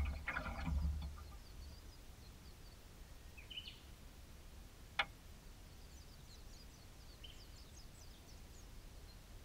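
Faint small birds chirping over quiet open-air ambience. A low rumble with some rattling fades out during the first second, and a single sharp click comes about five seconds in.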